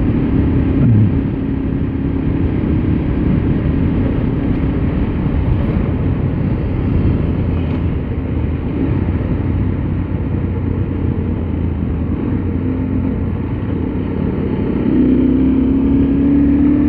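Motorcycle engine running under way, with heavy wind rumble on the camera microphone. The engine note drops about a second in and rises again near the end as it accelerates.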